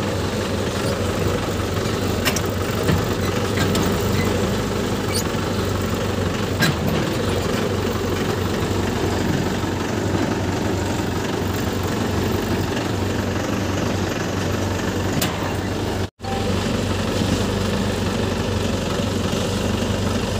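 Mahindra 575 DI tractor's four-cylinder diesel engine running steadily, heard from the driver's seat close to its upright exhaust. The sound cuts out for an instant about sixteen seconds in.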